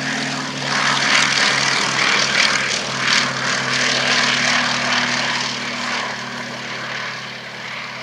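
Westland Lysander's Bristol Mercury radial engine and propeller running at power as the aircraft passes: the sound swells about a second in and eases off near the end.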